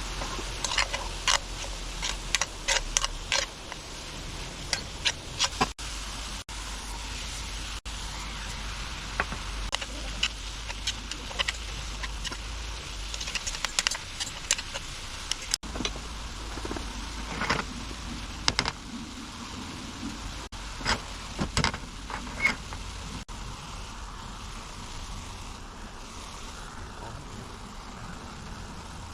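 Camp cooking: irregular light clicks and taps of utensils over a steady background hiss, the taps thinning out in the last third.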